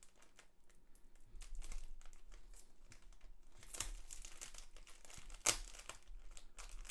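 Plastic packaging crinkling and being torn open by hand, with scattered crackles and two sharper loud crackles in the second half.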